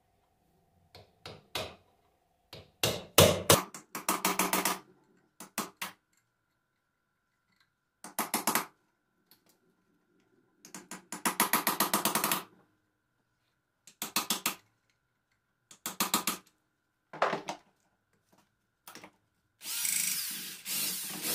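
Power tool run in short bursts, about eight of them with pauses between, each with a fine, rapid stutter, backing out the screws of an alternator's front cover.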